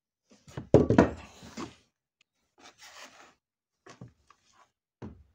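Bonsai root ball being set down and shifted by hand on a work surface. A cluster of knocks and scraping comes about a second in, followed by softer rubbing and a few light taps.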